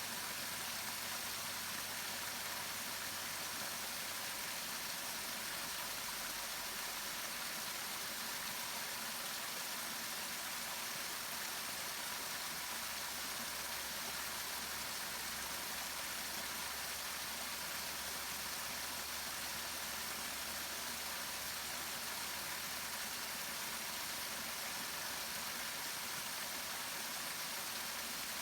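Waterfall: a steady, even rush of falling water, mostly high hiss with little low rumble.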